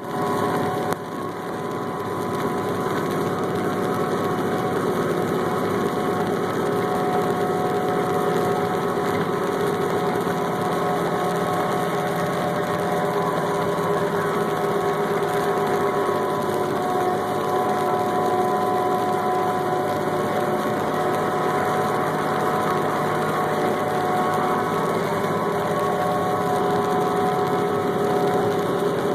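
Sugar beet harvesting machinery running steadily under load, an engine hum carrying several steady held tones.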